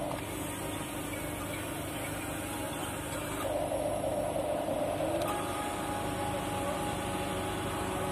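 Electric motors and gearboxes of a Huina 1550 RC excavator whirring steadily as the boom and arm move and the upper body swings. The whine changes pitch about three and a half seconds in and again about five seconds in, as a different motion starts.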